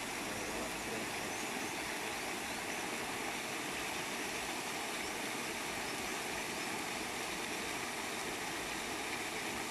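Steady rushing splash of a floating pond aerator throwing water up into the air, an even, unbroken noise.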